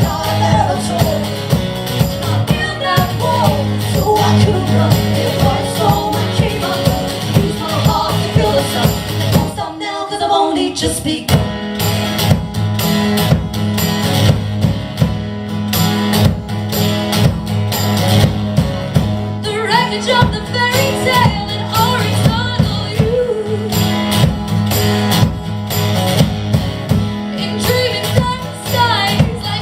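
A live song: singing over strummed guitar accompaniment, with a short break in the singing about ten seconds in before the voices return.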